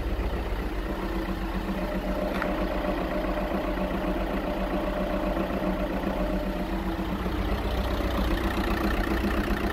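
Skoda Octavia 1.9 TDI four-cylinder turbodiesel idling steadily on a cold start, a little louder near the end. It is running just after a camshaft and lifter replacement; the owner says it now runs badly and suspects injectors damaged by the mechanic.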